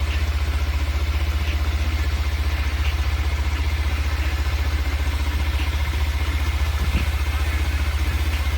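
Motorcycle engine idling steadily, a low, even, rapid pulse.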